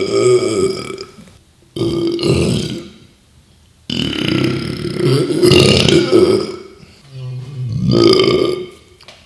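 A man belching loudly, a run of long voiced burps. One tails off in the first second, then three more follow, the middle one nearly three seconds long.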